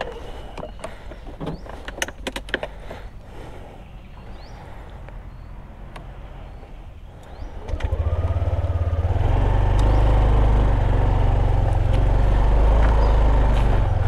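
Yamaha NMAX scooter's single-cylinder engine: a few clicks first, then about eight seconds in a loud low rumble comes in and holds steady as the scooter moves off.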